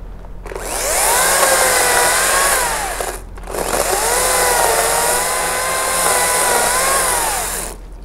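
Makita battery top-handle chainsaw run in two bursts of about three and four seconds with a short break between. Its electric motor whine rises as it spins up, holds and falls away as it stops each time.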